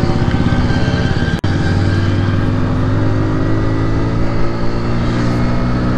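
Hero Splendor motorcycle's single-cylinder four-stroke engine running steadily at cruising speed through its stock silencer, a smooth sound.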